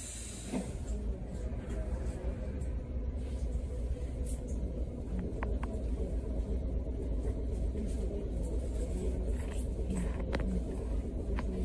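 Sapporo streetcar pulling away, heard from inside the car: a steady low rumble of the motor and running gear that grows louder about half a second in, with a few sharp clicks from the wheels and track along the way.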